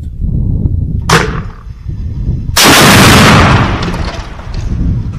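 TOW anti-tank missile fired from its tripod launcher. A sharp crack comes about a second in, then the very loud rushing blast of the launch about a second and a half later, fading away over the next two seconds, over a steady low rumble.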